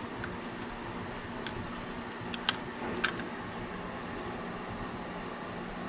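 Steady fan-like hum with two light clicks a little before and after the middle, from control wires being worked into a terminal block.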